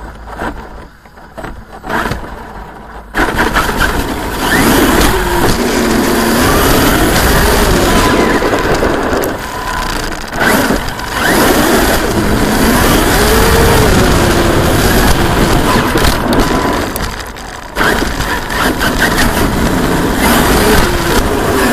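Onboard sound of a Traxxas X-Maxx RC monster truck running on 8S through its HobbyWing Max6 and stock brushless motor. About three seconds in the truck takes off, and the motor whine rises and falls in pitch with the throttle over loud tire and dirt-road noise. The sound drops briefly a few times where the throttle is let off.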